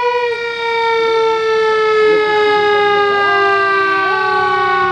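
Siren wailing close by: one loud tone that slowly falls in pitch over about four seconds, then starts to rise again near the end.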